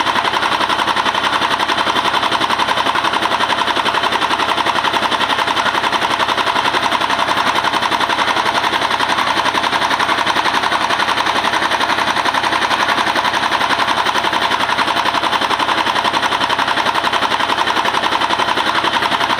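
Diesel engine of a mobile rice huller running steadily, a loud, fast, even beat of pulses with the milling machinery.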